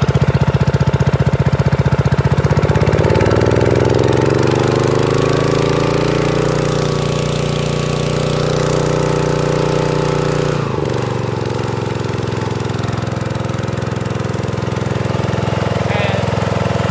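Kubota GS280 petrol engine running at full throttle, belt-driving a high-pressure water pump, with the hiss of the water jet. About three seconds in the engine picks up speed and a higher whine rises, then holds steady; it sags briefly about ten seconds in and recovers.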